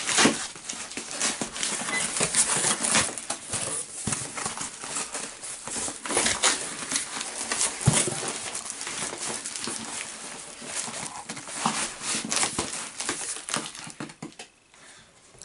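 A heavily wrapped cardboard parcel being torn open by hand: long, uneven stretches of ripping packing tape, tearing and scraping cardboard and rustling, with many sharp rips. It dies down near the end.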